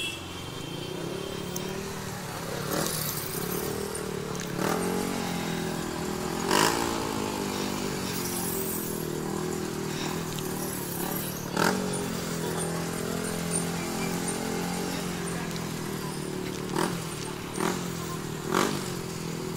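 TVS Ntorq scooter's small single-cylinder engine running at low speed, the pitch drifting up and down as the rider eases the throttle in slow traffic. A few brief, sharp street sounds stand out over it.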